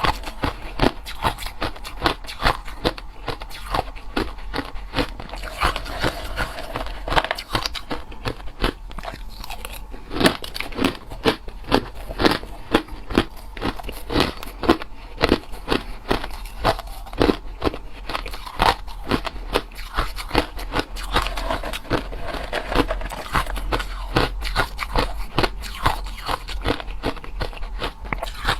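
A person biting and chewing hard crushed ice, a steady run of sharp crunches, several a second.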